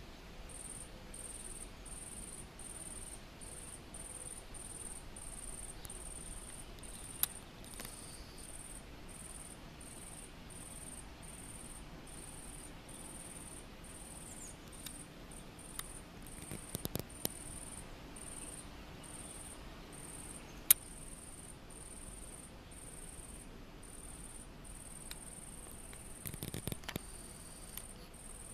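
An insect chirping in a steady rhythm of short, high-pitched pulses, about two a second. A few sharp clicks cut in, the loudest about three quarters of the way through.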